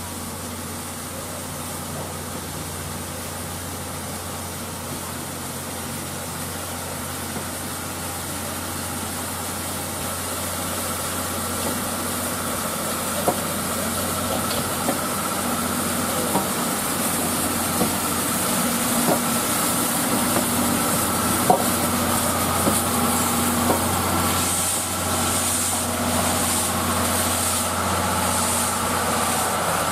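JNR Class D51 steam locomotive (D51 498) moving slowly past with its coaches, getting louder as it nears, with scattered sharp metallic clanks. Near the end, steam from the cylinder drain cocks hisses in bursts.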